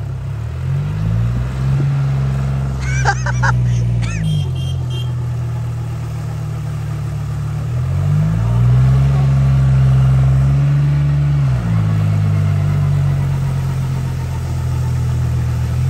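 John Deere tractor's diesel engine revving hard in surges as its rear tyres spin in deep mud, flinging mud. The revs climb soon after the start, ease back about four seconds in, climb again around eight seconds and drop back near twelve seconds.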